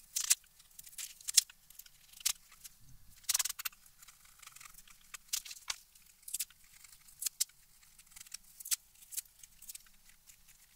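A knife blade scraping and prying dry pastedown paper off book board: irregular short, scratchy scrapes and crackles as the paper lifts away in flakes.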